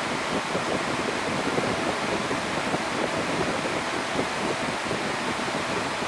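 Steady rushing noise at an even level, with no clear music or voices standing out.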